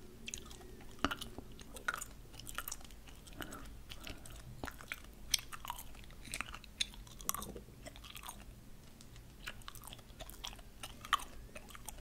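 Chewing of candy-coated gum: a string of irregular sharp clicks, a few standing out louder than the rest.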